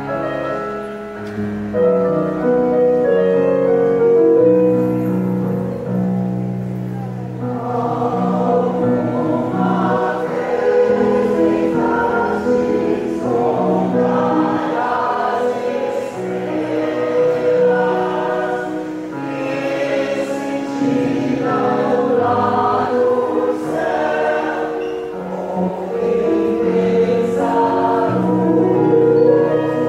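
Choir singing in several parts, with long held notes; the sound grows fuller about seven seconds in.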